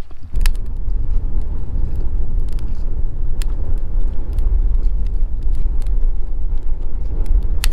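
Wind buffeting the microphone outdoors: a loud, uneven low rumble, with a few sharp clicks scattered through it.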